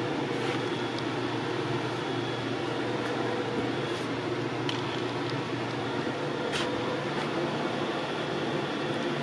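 HEPA air filter running with a steady rush of air, with a few faint clicks from the articulated Loc-Line fume-extractor hose as it is moved by hand.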